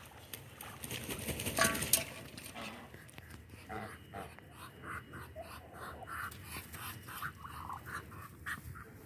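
Muscovy ducks mating: a regular series of short breathy, panting puffs, about three a second, from a few seconds in. A loud rustling burst comes about one and a half to two seconds in.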